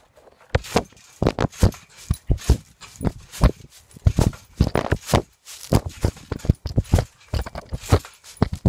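Irregular knocks and clicks, two or three a second, some louder than others.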